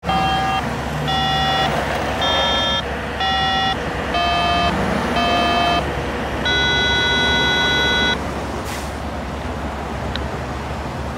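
A train horn sounding six short blasts and then one long blast, each blast a chord of several notes, over a steady low traffic rumble.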